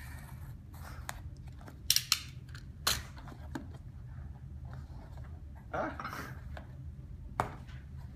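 Packaging being cut open with an improvised blade in place of a proper knife: a few sharp scratchy cuts, two close together about two seconds in, another a second later, and one more near the end.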